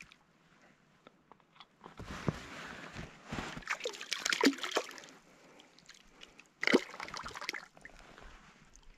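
Shallow lake water splashing and sloshing as a hooked fish is released by hand, with one sharper splash about two-thirds of the way through.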